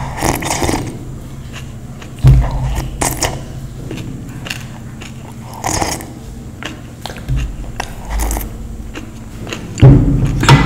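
Close-up eating sounds: rustles and crunchy bites of food, broken by a few sharp thumps, the loudest about two seconds in and twice near the end.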